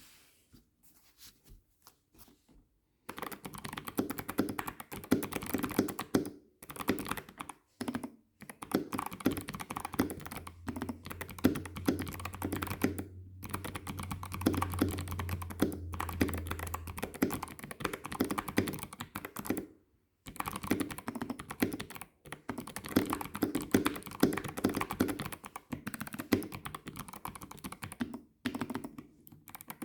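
Typing on a custom mechanical keyboard with Krytox-lubed switches and PBT keycaps, set on thick packaging foam, which deepens the sound. Typing starts about three seconds in and runs in quick runs of keystrokes broken by short pauses. A low hum sounds underneath for several seconds midway.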